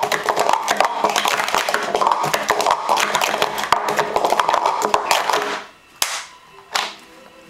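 Plastic speed-stacking cups clattering on a mat-covered table in a rapid run of quick clacks as they are stacked up and down in a sport-stacking cycle. The clatter stops about five and a half seconds in, followed by two sharp knocks.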